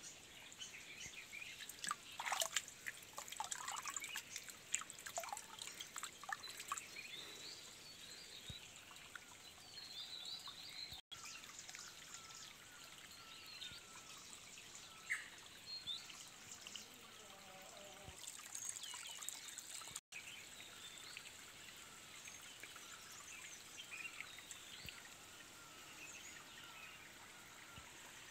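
Faint trickle of a shallow, rocky forest stream, with birds chirping now and then. A run of sharp clicks and knocks in the first several seconds is the loudest part.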